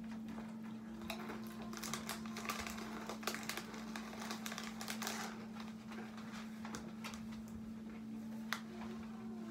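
Foil snack bag of Doritos crinkling as a hand rummages in it, with tortilla chips crunching, in irregular crackles and clicks over a steady low hum.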